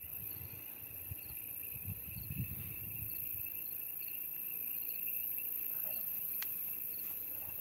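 Night insects, crickets among them, trilling steadily: a high continuous drone with short chirps repeating over it. Faint rustling comes in the first few seconds and a single sharp click about six and a half seconds in.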